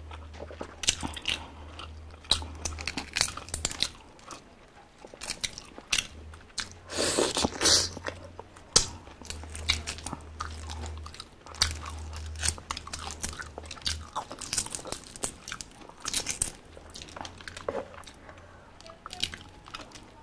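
Close-miked eating of balut: chewing and biting sounds with many short clicks and crackles, including the eggshell cracking and crackling as it is peeled by hand. A louder noisy stretch comes about seven seconds in.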